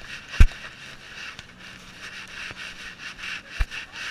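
A dog panting in quick, even breaths right at a camera strapped to its body, with two heavy knocks as the camera bumps, the loudest about half a second in and a second near the end.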